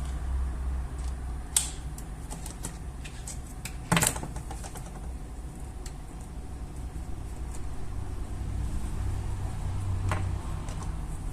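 A few sharp clicks and small knocks of laptop parts being handled, the loudest about four seconds in, over a steady low rumble.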